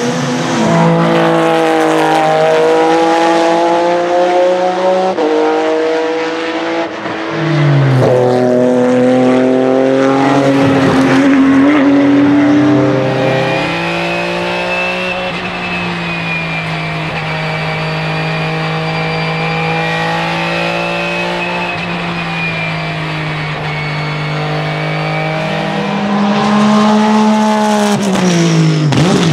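Porsche 996 GT3 RSR race car's 3.6-litre flat-six engine at full throttle, its pitch climbing and dropping sharply at several quick upshifts. It then holds a steady high note at speed and rises again before falling away near the end.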